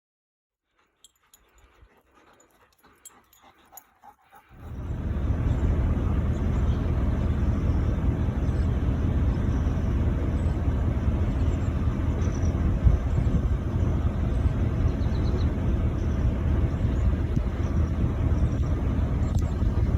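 A dog whimpering over a steady low rumble that comes in suddenly about four and a half seconds in, after a few faint clicks.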